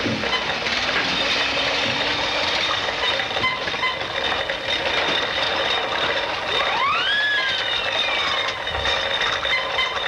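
Continuous mechanical clattering and rattling sound effects from an old mono film soundtrack, under a steady hiss. About seven seconds in, a whistle sweeps quickly up and then slowly back down.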